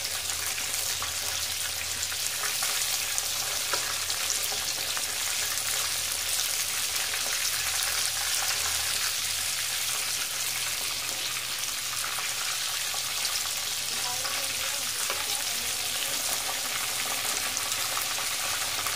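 Breaded chicken rolls deep-frying in hot oil: a steady sizzling hiss with fine, continuous crackling.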